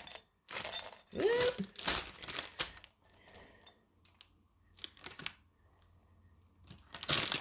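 A plastic bag of chocolate chips crinkles and rustles in several bursts while chips are shaken into a glass bowl on a kitchen scale. There is a short vocal hum about a second in, and another loud rustle near the end.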